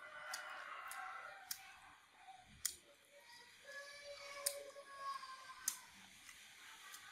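Close-up eating sounds: sharp wet clicks of chewing and lip smacks, about one every second, as a mouthful of chewy rice-paper salad is eaten. Faint drawn-out pitched sounds are heard in the background twice.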